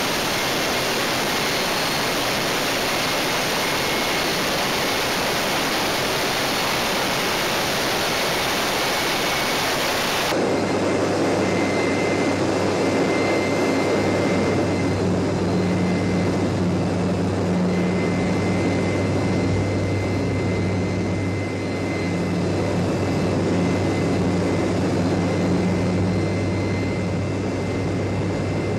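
Steady, loud rushing noise with no clear pitch, like strong airflow or machinery. About ten seconds in it changes abruptly to a lower, steady mechanical drone with a hum.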